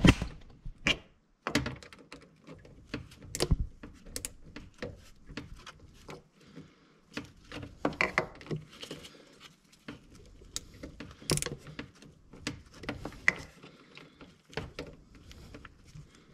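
Irregular small clicks, taps and scrapes as a radiator bleed screw is turned back in by hand to close the bleed hole after coolant has started to come out of it.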